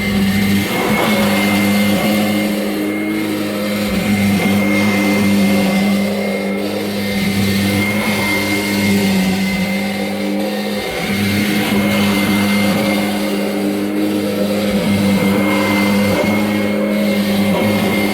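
2006 Kirby G10 Sentria upright vacuum cleaner running steadily, a motor hum with a thin high whine over it.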